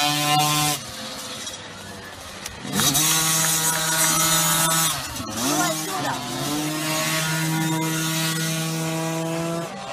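50 cc two-stroke youth motocross bike engines buzzing at high revs on a steady note. The buzz drops back shortly after the start, rises in pitch about three seconds in, wavers up and down around the middle, then holds steady again.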